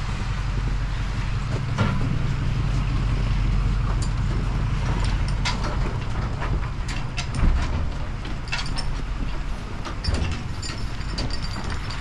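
Truck engine running steadily while driving, with rattles and knocks throughout and a louder thump about seven and a half seconds in.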